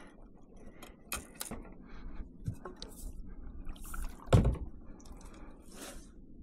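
Handling noises in a kayak: scattered small knocks and clicks of the rod and paddle against the hull, with dripping and light splashing of water. A louder, deeper thump about four seconds in.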